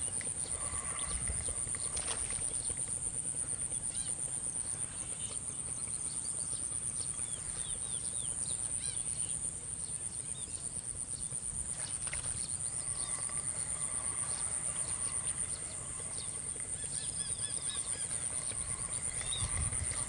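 Waterside outdoor ambience: birds calling, with short chirps and a few lower calls, over a steady high-pitched buzz.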